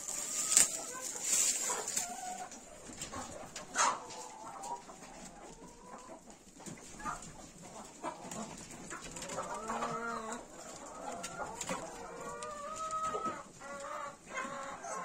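Hens clucking and calling, with calls coming more often in the second half, along with a few sharp clicks.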